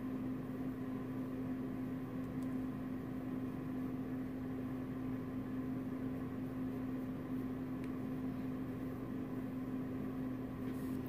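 Steady low hum with one held tone over a faint hiss, from a running appliance.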